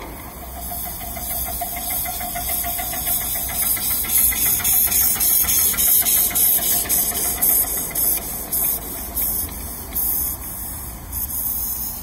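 Miniature live-steam locomotive working a passenger train, its exhaust chuffing and hissing in a quick rhythm that grows louder over the first few seconds.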